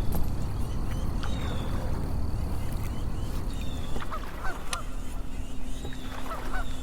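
Geese honking in short bunches of calls, about four seconds in and again near the end, over a low rumbling background with scattered light clicks.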